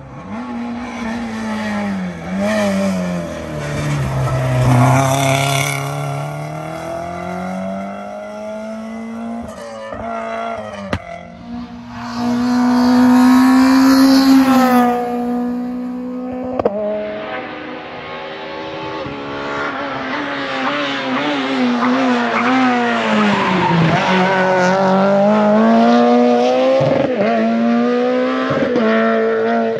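Rally cars at full attack on a tarmac stage, one after another: engines revving hard, the pitch climbing and dropping through gear changes and braking as each car comes through and passes by.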